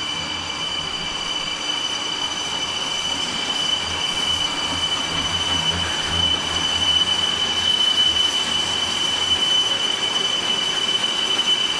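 Metal lathe turning a lug-type butterfly valve body: the cutting tool on the spinning metal gives a steady high-pitched squeal over the machine's low hum, and the hum drops away near the end.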